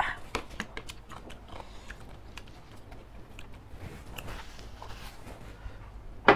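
Close-miked mouth sounds of eating and drinking: a slurp of laksa broth from a spoon at the start, then small lip smacks, clicks and gulps of water. A single sharp, loud click about six seconds in.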